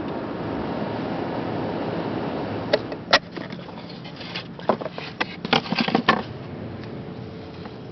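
Steady background noise, then from about three seconds in a quick run of sharp clicks and knocks as a wooden paint box is opened and the paint tubes and brushes inside are handled.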